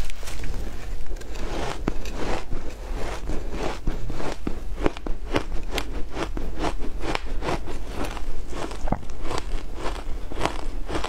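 Frozen shaved ice being chewed, a steady run of crisp crunches and cracks, several a second.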